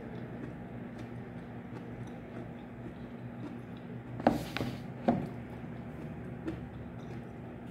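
Cutlery knocking against a food container while eating: two sharp knocks a little under a second apart, about four seconds in, and a lighter one later, over a steady low room hum with faint small ticks.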